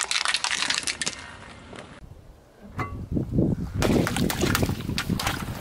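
A car tyre rolling over a plastic-wrapped pack of coloured sticks, crackling and crunching for about a second. Then the tyre rolls onto water balloons, which burst with a low thud and a spray of water, crackling and splashing over the last two seconds.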